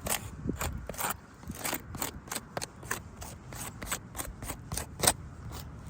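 Irregular scrapes and clicks of handling, a few each second, with one sharper click about five seconds in.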